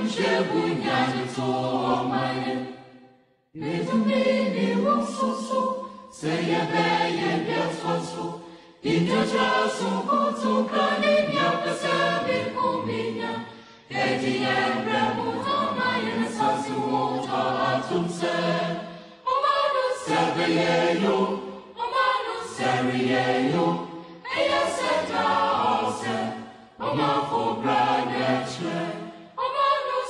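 Choir singing as background music, in phrases of a few seconds broken by short pauses.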